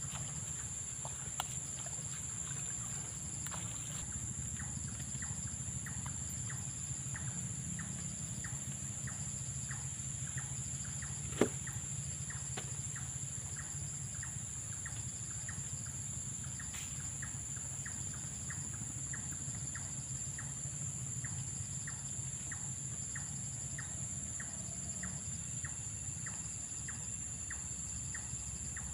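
An evening chorus of insects: a steady, high-pitched drone, with a regular ticking call about twice a second and a low hum underneath. There is one sharp click about halfway through.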